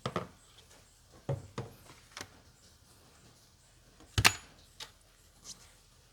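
Scattered clicks and knocks of parts and tools being handled, with a sharp clack about four seconds in, the loudest of them.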